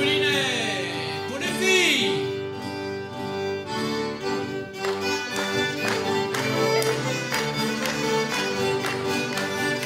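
Traditional Breton dance music from a folk band, the fiddle leading over acoustic guitar and diatonic accordion. Two swooping downward glides sound in the first two seconds, and from about halfway a steady rhythmic beat of sharp strokes carries the tune.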